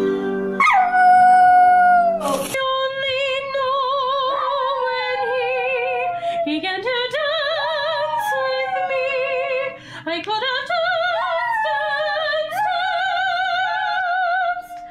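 For the first couple of seconds, music with singing plays. After a cut, a small dog howls in long, wavering held notes, several swooping upward as they begin, like singing.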